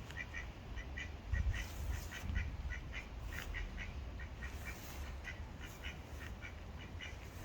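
Mallard ducks quacking in a steady run of short calls, several a second, over a low rumble.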